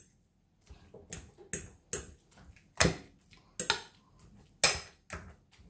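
Metal fork clinking and scraping against a ceramic plate while mashing roasted aubergine: about eight irregular sharp clinks, the loudest near the middle and toward the end.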